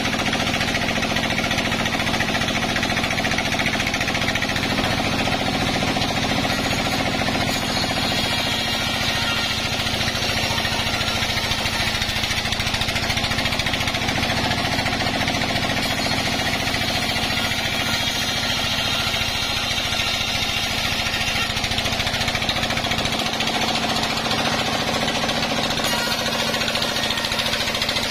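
Sawmill band saw running and ripping a log as it is pushed through the blade: a loud, continuous machine noise with a fast, even pulse underneath.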